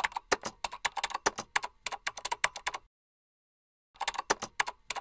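Rapid keyboard typing clicks, a typing sound effect laid over text being typed out on screen. The clicks run for almost three seconds, stop for about a second, then start again about four seconds in.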